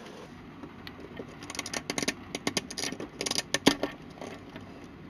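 Hands handling the plastic LEGO Technic engine model: an irregular run of sharp plastic clicks and rattles, starting about a second in and ending shortly before the close, with the loudest click just before it stops.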